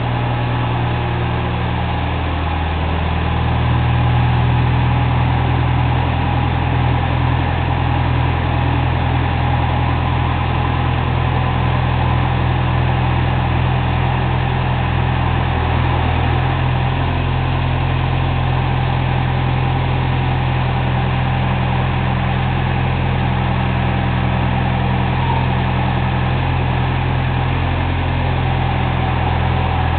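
JCB 185 skid steer's diesel engine running steadily, rising a little about three seconds in and then holding even.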